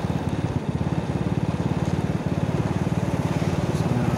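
Small motorcycle engine running steadily at low riding speed, heard from the rider's seat, with rapid, even firing pulses.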